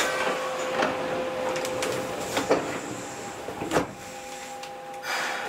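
Kobe Municipal Subway 1000 series train car heard from inside: a steady electrical hum that shifts to a higher steady tone about four seconds in, with a few sharp knocks about two and a half and almost four seconds in, and a short hiss near the end.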